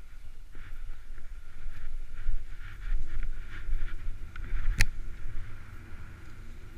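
Wind buffeting the camera microphone as a low rumble, with the repeated swish of cross-country skis gliding in a groomed snow track. One sharp click about five seconds in.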